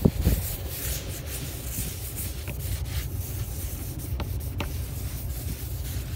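Polish being rubbed over a sanded transparent panel: a steady scrubbing of rubbing strokes, with a low rumble underneath. The polishing is bringing back clarity to a surface that was dulled by 2000-grit sanding.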